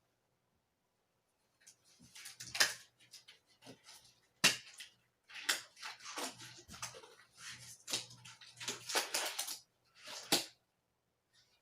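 A plastic underpad (perlak) being handled and spread, crinkling and rustling in irregular spells with a few sharp crackles, starting about two seconds in.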